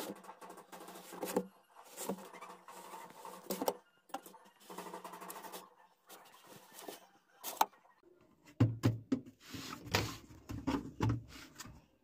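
Utility knife blade cutting through the wall of a thick plastic container, making creaking, scraping strokes of about a second each with sharp clicks between them. Near the end come heavier knocks and thuds from the plastic as the cut-out disc is worked free.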